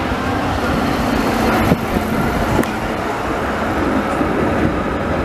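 Trams rolling past at close range on street track: a steady rumble of wheels on rails with a faint motor hum. Two sharp clicks, about a second apart, come near the middle.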